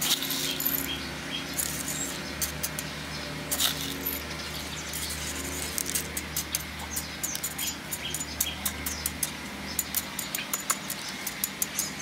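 Metal spoon scraping and clicking against small pebbles as gravel is pressed in around a plant in a small pot: a run of light, irregular clicks and rattles. A steady low hum runs underneath and stops near the end.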